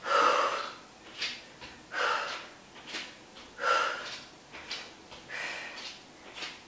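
A woman breathing hard in rhythm with alternating reverse lunges: four strong, breathy exhales about every second and a half to two seconds, with shorter breaths in between.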